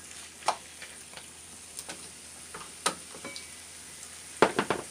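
Chicken and onions sautéing with a faint steady sizzle in a non-stick frying pan, stirred with a black plastic spatula that knocks against the pan now and then. Near the end comes a quick run of four knocks, the loudest sounds.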